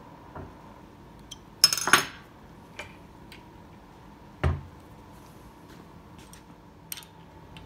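Steel hand tools and metal parts clinking against a steel workbench: a loud ringing clatter about two seconds in, then a single heavier metal thud about halfway, with light ticks and clicks between.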